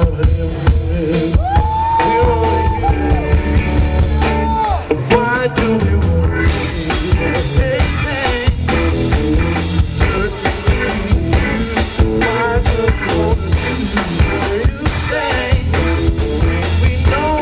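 A live band playing with electric guitar, keyboards, bass guitar and drum kit, and a singer's voice over it.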